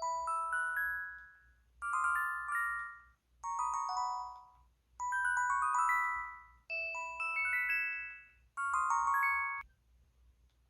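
LG-SV360 mobile phone's built-in sound effects: six short jingles of quick stepping electronic tones, each about a second and a half long, played one after another with brief gaps, stopping about a second before the end.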